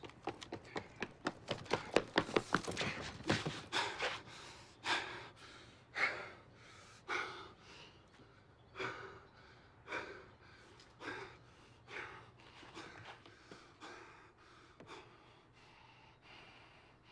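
A wounded man's hard, gasping breathing: quick, ragged breaths at first, slowing to about one heavy breath a second and fading as he catches his breath.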